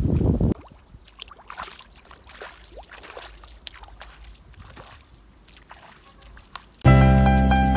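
Bare feet wading through shallow muddy water: soft, irregular sloshing splashes, about one or two a second. A loud rushing noise cuts off about half a second in, and piano music starts near the end.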